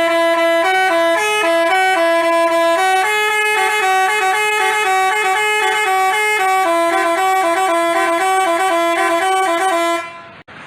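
Telolet multi-tone bus horn of the Basuri type playing a quick melody of stepped, held notes, stopping about ten seconds in.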